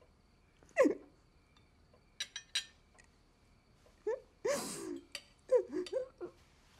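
A person crying: short, wavering whimpering sobs, a sharp cry that falls in pitch about a second in, and a loud gasping breath past the middle, with a few small clicks in between.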